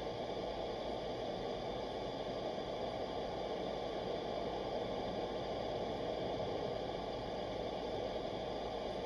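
Steady road noise of a car driving at highway speed through a road tunnel, heard inside the car's cabin.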